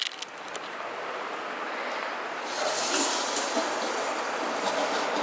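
A short knock, then a steady rush of water running into a stainless-steel dog bowl as it is refilled, swelling a little partway through.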